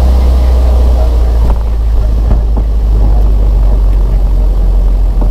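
Propeller aircraft engine and cabin noise heard from inside the aircraft as it rolls along the runway: a loud, steady low drone. The higher rushing noise drops away about a second and a half in.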